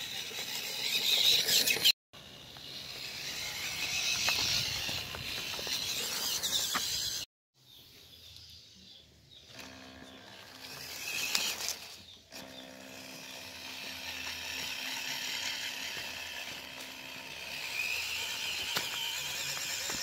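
MN99S RC Land Rover Defender's small electric motor and gearbox whining as the car drives over rough ground, the whine rising and falling with the throttle. The sound cuts out briefly twice.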